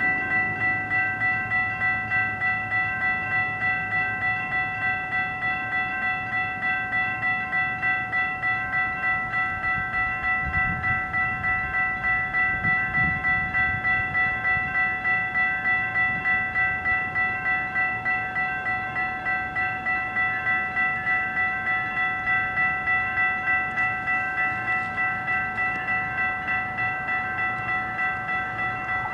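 A railway warning bell ringing steadily at about two strokes a second, with a low train rumble fading away in the first second.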